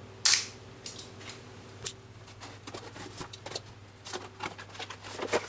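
A knife cutting open a cardboard box: one sharp scrape about a quarter second in, then scattered light clicks and rustles as the box is worked open.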